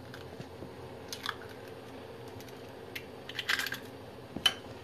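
Eggshell being broken open and pulled apart by hands in thin plastic gloves: scattered small cracks and crackles, a quick run of them about three and a half seconds in, and a sharp click near the end.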